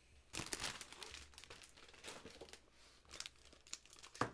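Paper wrapping crinkling and rustling as items are unwrapped by hand, in a series of short crackles, the loudest about half a second in and another sharp one just before the end.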